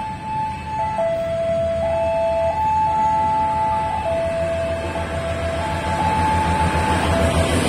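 Level-crossing warning alarm sounding two alternating tones, each held about a second, over the low rumble of a diesel train's engine. The alarm fades near the end as the train noise grows louder.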